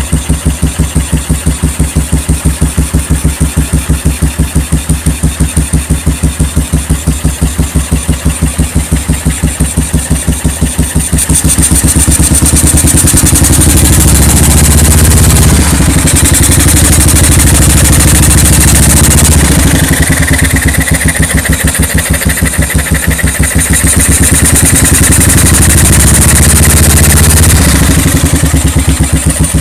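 BMW R25/3's single-cylinder four-stroke engine idling with an even exhaust beat. About eleven seconds in it is revved up and held at higher revs, then drops back to idle near the end.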